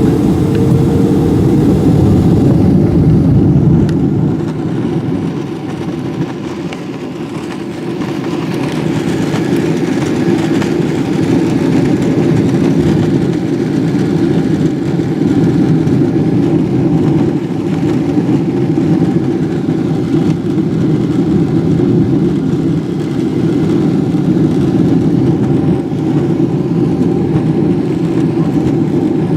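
Loud, steady rumble of a Boeing 777-300ER's GE90 jet engines and airflow heard inside the cabin under takeoff power. The rumble dips for a few seconds about four seconds in, then holds steady.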